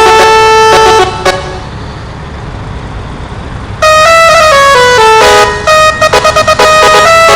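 Telolet multi-tone truck horn playing a melody of loud tones that step from pitch to pitch. It stops about a second in, leaving a quieter rumble, then starts again nearly four seconds in, with a quick run of short stuttering toots soon after.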